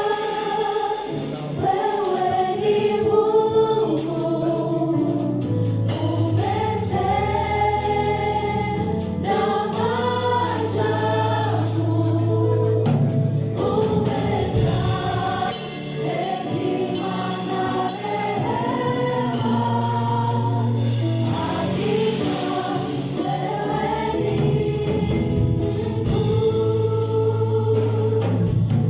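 A church choir singing a gospel worship song in rehearsal, backed by instruments with a sustained low bass line and percussion.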